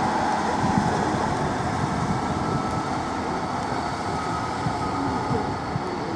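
Diesel multiple unit pulling away from a platform, its underfloor diesel engines running under power with steady rolling rumble, slowly getting quieter as it moves off.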